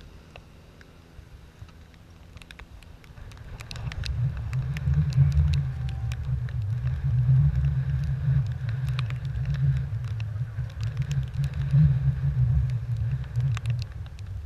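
Strong wind buffeting the microphone: a gusting low rumble that swells about four seconds in and eases near the end, with scattered light ticks.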